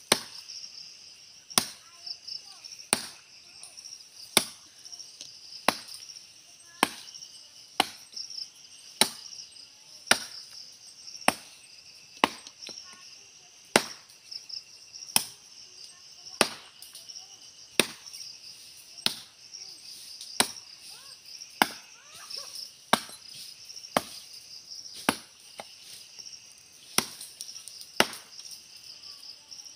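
A bolo (machete) chopping into the base of a small tree trunk to fell it, sharp strikes about one every second and a quarter, with steady high-pitched insect chirring behind.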